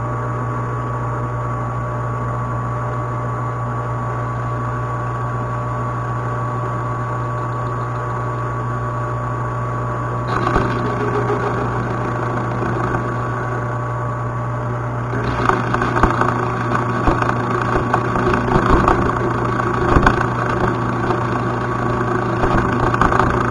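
Metal lathe running steadily at low speed. About ten seconds in a cut starts, and from about fifteen seconds the cutting turns louder and rough, with irregular knocks, as the tool chatters across the holes drilled through the cylinder. The machinist blames chips getting into those holes.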